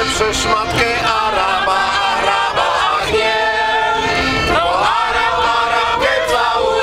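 A group of people singing a Polish comic song in chorus, accompanied by an accordion.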